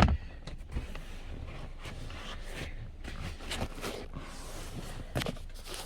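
A sharp click at the start, then scattered light knocks and rustling from hands handling a car's plastic interior trim cover.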